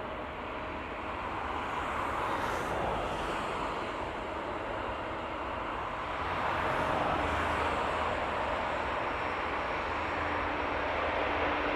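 Rolls-Royce Trent XWB jet engines of an Airbus A350-900 running at taxi power, a steady rushing rumble that grows a little louder about six seconds in.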